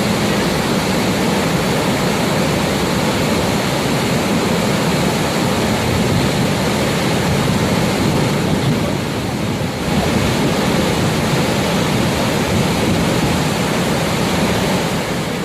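Haew Narok waterfall's falling water, a loud, steady rushing noise with no let-up.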